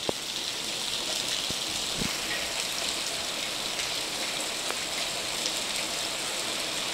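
Heavy rain pouring down steadily, with a few sharper drop impacts standing out now and then.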